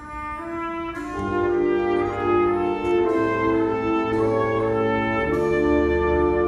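Wind orchestra playing live, the brass to the fore in full held chords that come in about a second in, after a brief quiet moment.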